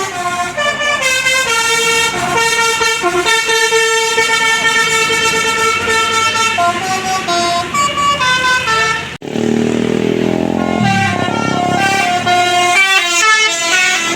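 Tour bus 'basuri' (telolet) musical air horn playing a melody of stepped, held notes. About nine seconds in the sound cuts abruptly to another bus horn, first a lower tone and then another tune.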